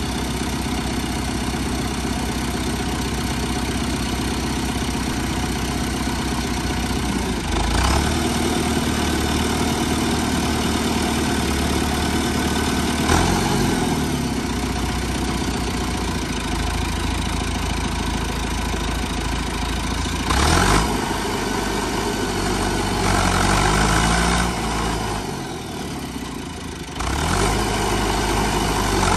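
Diesel tractor engine running under heavy load as the bogged-down tractor strains in mud, its pitch surging up and falling back several times, with a dip and recovery near the end.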